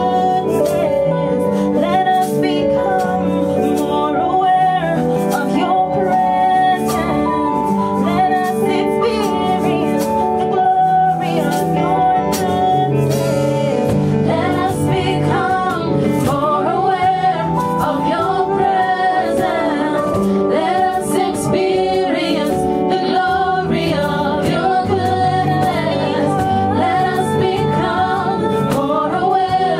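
Live gospel worship music: a woman singing lead over a small band of acoustic guitar, cajón with cymbal, keyboard and electric guitar, with regular hand-drum strokes.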